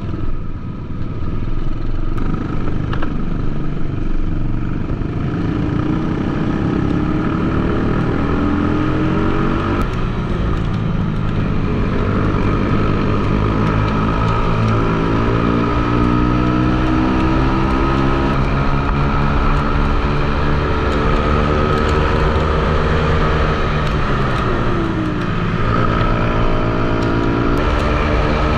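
Single-cylinder four-stroke engine of an Ohvale 12-inch minibike at race pace, heard onboard, with the pitch climbing again and again as it accelerates through the gears. Another minibike runs close alongside. Late on the pitch drops sharply and then climbs again.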